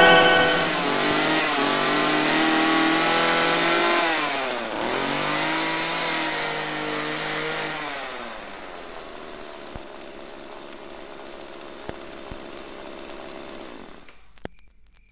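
Two-stroke chainsaw running and revving, its pitch sagging and climbing, then fading away over the second half and stopping near the end.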